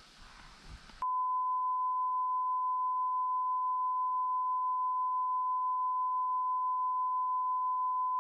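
Censor bleep: a steady, single-pitched beep tone that cuts in about a second in and holds unchanged, masking the conversation, with faint voices just traceable beneath it.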